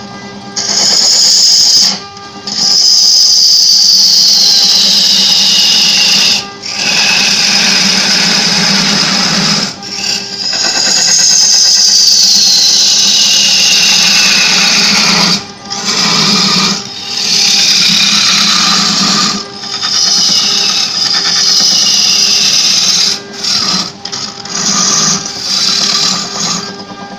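Gouge cutting into a large wooden blank spinning on a wood lathe: a loud scraping hiss in repeated passes, broken by short pauses as the tool lifts off, with a shrill whine that slides down in pitch during the longer cuts.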